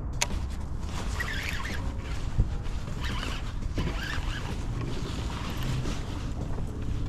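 Low wind rumble on the microphone, with scratchy rustles and clicks over it and a single thump about two and a half seconds in.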